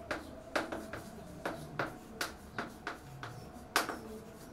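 Chalk writing on a blackboard: about a dozen short taps and scratches of the chalk stick as words are written by hand, the sharpest stroke near the end.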